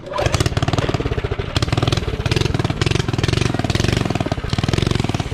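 Mini bike's Predator 212 single-cylinder engine running on throttle as the bike rides, a loud, rapid, even firing rattle that starts abruptly.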